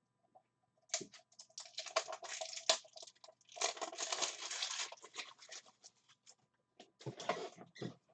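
Bursts of rapid clicking and rustling as small card boxes and packaging are handled and opened, one long flurry from about a second in, then a shorter one near the end.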